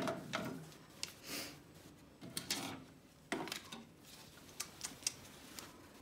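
Light handling noise: a scattered series of small clicks and knocks, with a brief rustle about a second and a half in, as hands move a plush puppet and toy food and tap a tablet screen.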